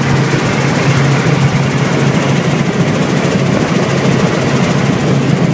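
Small helicopter in flight, heard from inside the cabin: steady engine and rotor noise with a strong low hum under a broad rush of air.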